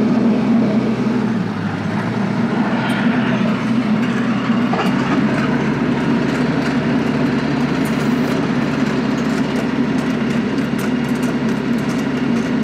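Tractor-PTO-driven Baumalight stump grinder cutting into a red cedar stump, the tractor engine running steadily under load. Many small ticks of chips being thrown run through it.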